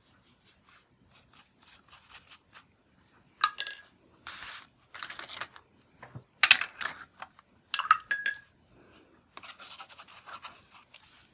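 Intermittent rustling and scratching of dry papers being handled on a worktable, with a few short sharp clicks and taps as tools are picked up and set down. Near the end comes a longer stretch of continuous scratchy rubbing.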